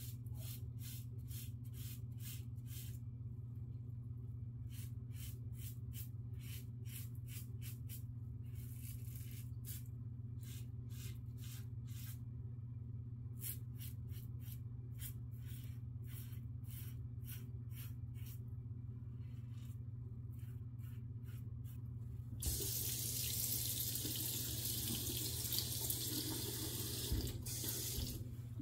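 Double-edge safety razor scraping through lathered stubble in many short strokes, over a steady low hum. About 22 seconds in a tap starts running into a sink for several seconds and stops near the end.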